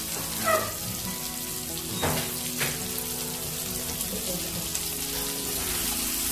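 Pork pieces sizzling as they fry in oil in an aluminium wok, a steady hiss, with a few brief clicks and knocks about half a second and two seconds in.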